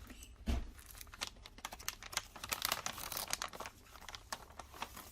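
Plastic packaging crinkling with scattered clicks as a replacement phone display is handled, with a low thump about half a second in.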